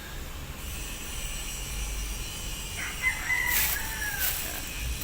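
A rooster crowing once, starting about three seconds in: a long held call that falls in pitch at the end.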